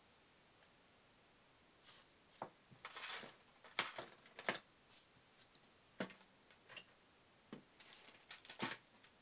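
Hands handling a smartphone: scattered light rubs, taps and clicks from about two seconds in, with a short rustle around three seconds and the last clicks near the end.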